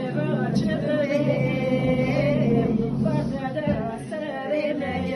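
Several women singing a funeral lament together without instruments, in long wavering held notes.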